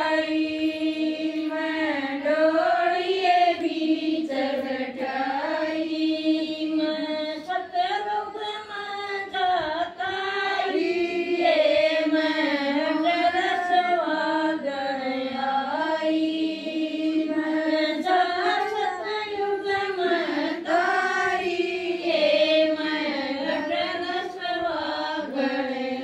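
A woman singing a bhajan (Hindu devotional song) unaccompanied, in long held notes that rise and fall.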